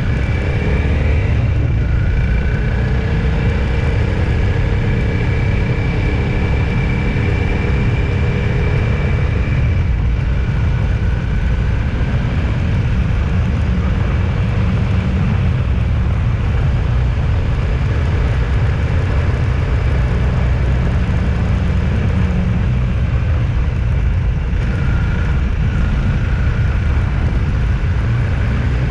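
Motor vehicle on the move: a steady low rumble of road and engine noise, with a faint whine over it in the first ten seconds or so.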